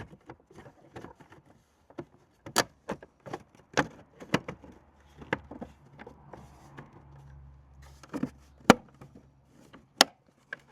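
Irregular plastic clicks and knocks as the Mercedes Sprinter W906 side mirror's housing and lens parts are handled and fitted back together, with sharper knocks near the end.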